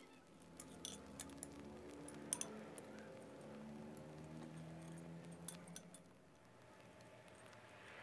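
Faint crackling and light ticking clicks from egg-coated sticky rice patties grilling on a wire rack over charcoal.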